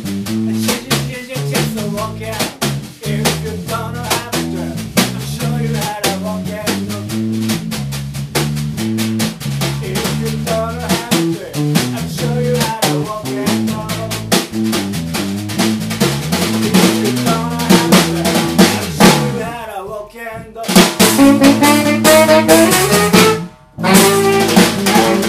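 Live rock band playing: electric bass lines over a drum kit with snare rimshots and kick drum. About two seconds before the end the band stops suddenly, then a few guitar notes ring out alone.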